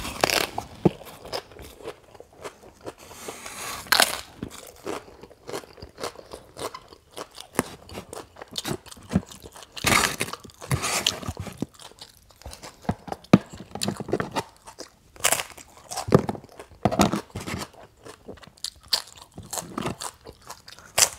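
Close-miked crunching and chewing of a crisp fried tostada topped with ceviche, irregular crackles with a few louder bites spread through.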